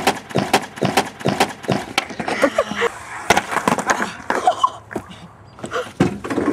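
Skateboard deck and wheels knocking and rolling on sheets of plywood laid over the ground: a run of sharp clacks, with a few short voice sounds in between.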